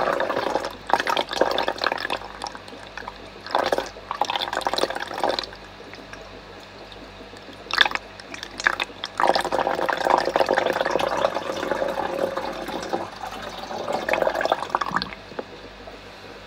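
Water poured from a jar into a fish tank in several splashing pours with short pauses between.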